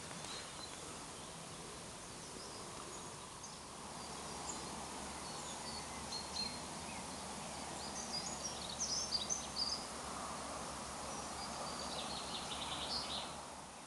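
Quiet outdoor ambience: a faint steady background hiss with scattered short bird chirps, the most and loudest of them about nine seconds in and a few more near the end.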